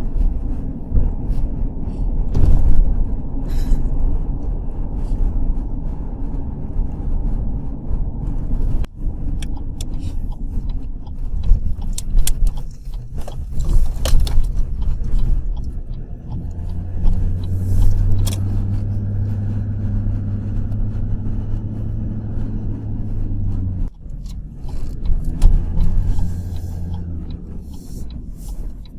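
Steady low rumble of a car's cabin, with a deeper hum from a little past halfway until about five seconds before the end, and scattered light clicks and scrapes.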